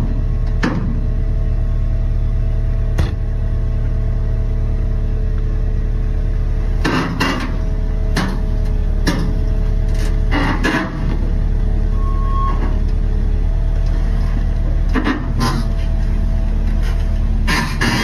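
XCMG XE950 crawler excavator's diesel engine running steadily, with a deep continuous drone, broken by irregular sharp knocks and clanks every second or few.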